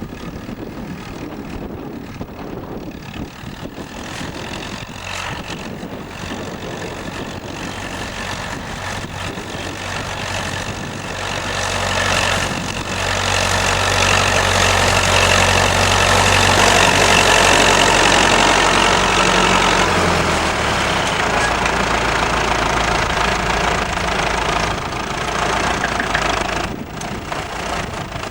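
Massey-Ferguson 65 tractor engine running. It grows louder a little before halfway through, then its note drops to a lower, steady pitch about two-thirds of the way in.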